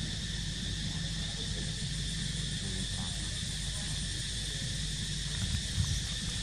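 Steady chorus of insects buzzing in the trees in a high, unbroken drone, over a low steady rumble.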